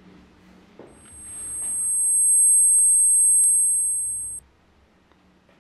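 Film sound effect: a piercing, very high-pitched electronic ringing tone of two pitches together. It swells up over about a second and a half, holds loud with a sharp click near its peak, then cuts off abruptly a little over four seconds in.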